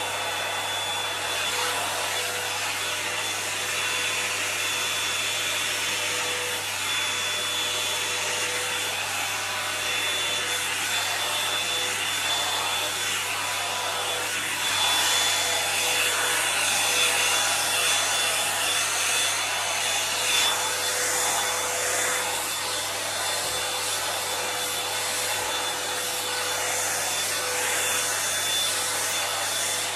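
Toni & Guy hot-air volumiser brush running, a steady rush of air with a faint steady whine, as it is drawn through long hair. The air noise gets a little louder partway through.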